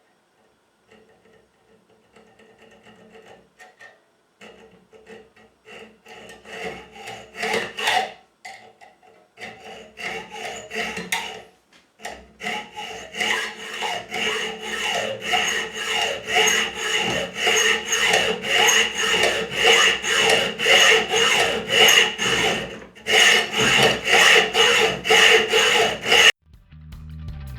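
Hand file rasping across a metal key blank in repeated back-and-forth strokes, roughing the blank down to size. The strokes start faint and uneven, then settle into a steady rhythm of about two strokes a second after about twelve seconds, with a brief pause near twenty-three seconds, and stop suddenly near the end.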